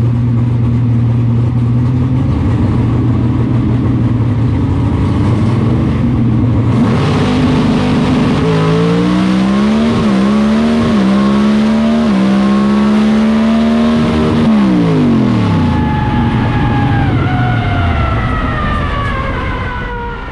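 Pro Stock drag car's V8 engine heard from inside the cockpit. It runs steadily at first, goes to full throttle about seven seconds in and climbs in pitch through several quick upshifts. It is lifted off about fourteen seconds in and winds down as the car coasts after the pass.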